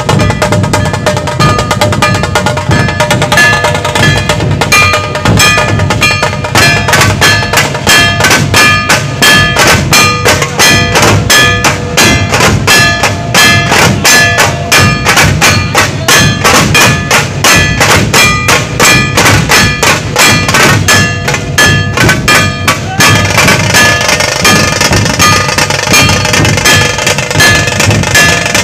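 Dhol-tasha troupe playing: massed dhol barrel drums and sharp tasha drums beating a fast, even rhythm, with brass hand cymbals ringing over it. Near the end the strokes run together into a denser roll with more cymbal hiss.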